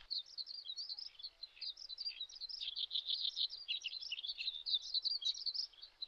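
Birds chirping: many quick, short, high calls overlapping in a steady stream.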